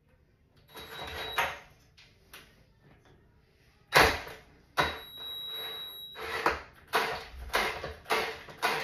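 Cordless drill driving screws into wooden boards: short runs of motor whine as the screw bites, a brief one about a second in, a couple of knocks of wood, then a loud, longer run from about four seconds followed by several short stop-start bursts.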